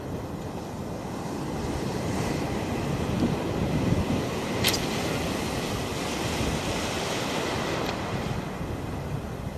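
Breaking surf washing and rushing close by, with wind buffeting the microphone; a single sharp click about halfway through.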